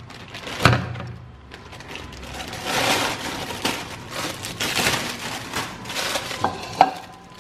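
Aluminium foil wrapping crinkling and rustling as a fish parcel is unwrapped over a steel sink, with a sharp knock about a second in.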